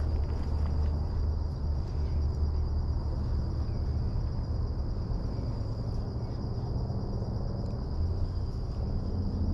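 Steady, high-pitched chirring of crickets over a low, steady rumble.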